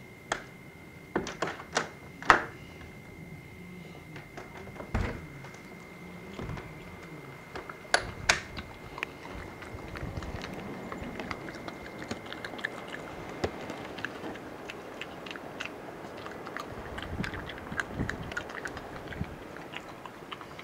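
European badger crunching dry food: irregular crunching and small clicks, thickening through the second half. Several louder sharp knocks come in the first eight seconds, the loudest about two seconds in.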